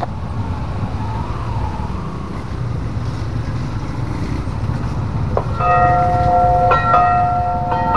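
Railway level-crossing warning bell starting to ring about five and a half seconds in: a chime of several steady tones, struck again roughly once a second. Before it there is a steady low rumble of traffic.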